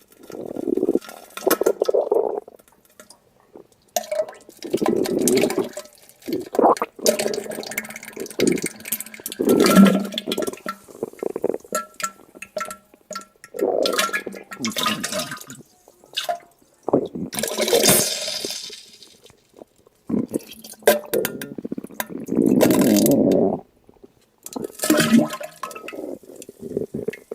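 Diarrhea sound effect: a run of about a dozen wet bursts, each a second or two long, with short pauses between.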